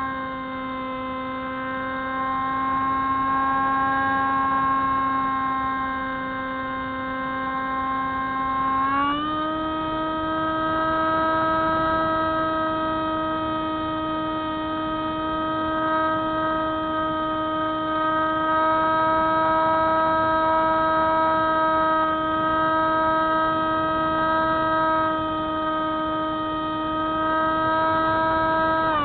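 Spyhawk FPV model plane's electric motor and propeller droning at a steady pitch. About nine seconds in the pitch steps up as the throttle is opened, then holds.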